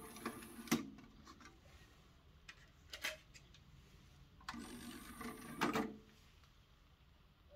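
Rotel RCD-930AX CD player's motorised disc tray: the end of the tray's opening run, a few light clicks near the middle, then the tray motor running for about a second and a half as the tray slides closed, ending on a knock as it seats.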